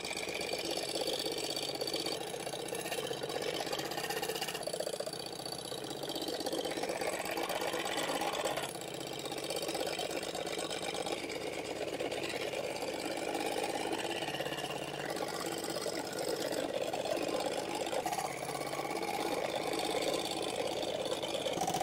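Homemade drill-powered table scroll saw running steadily, its fine blade moving up and down as it cuts through a thin wooden board.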